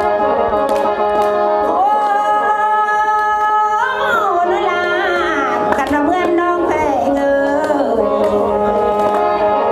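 Lao khaen (bamboo free-reed mouth organ) playing sustained chords over a steady drone, accompanying a mor lam singer in lam mahaxai style. The voice comes in about two seconds in, with long, ornamented phrases that slide up and down in pitch over the held chords.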